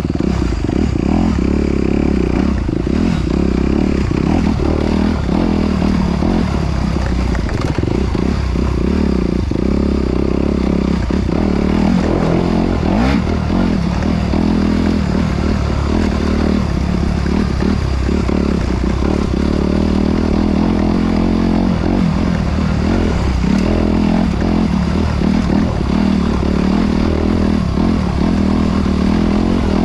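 Off-road vehicle running steadily while being ridden, with heavy wind buffeting on the microphone and occasional rattles and knocks over rough ground.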